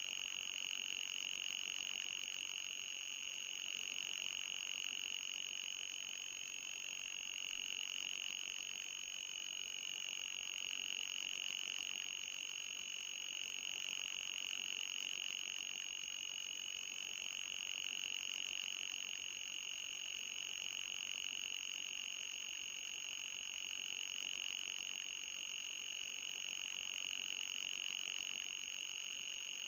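Electronic anti-mosquito repellent tone: a continuous high-pitched whine that wavers slowly in pitch, over a fainter, higher steady tone and light hiss.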